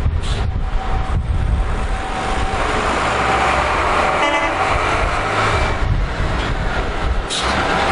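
Volvo flatbed lorry approaching with its diesel engine running, giving one short toot of its horn about halfway through.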